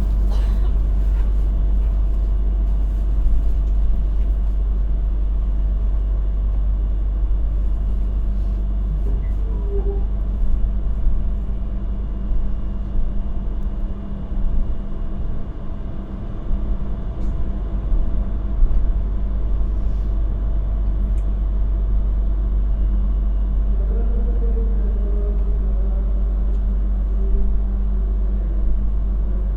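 Steady low rumble and hum of a passenger train carriage in motion, heard from inside the car.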